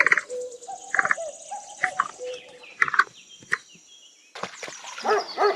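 Capybara giving short, sharp chirping clicks about once a second, over a steady high-pitched background whine. About four seconds in the sound changes to a run of rising-and-falling whining calls.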